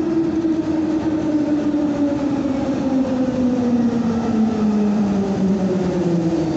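Berlin S-Bahn class 485 electric train pulling into the station. Its motor whine falls steadily in pitch as it slows, over a steady rumble of wheels on rail.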